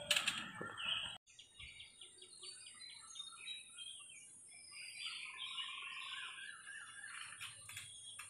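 Small birds chirping with many short, repeated notes, over a faint steady high-pitched whine. A brief loud click right at the start, likely from handling the tripod.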